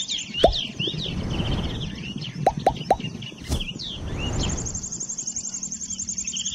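Yellow-eyed babblers calling: a run of short, repeated descending whistled notes, with a fast high trill behind them for much of the time. A sharp plop sounds about half a second in, and three quick plops come together around two and a half seconds.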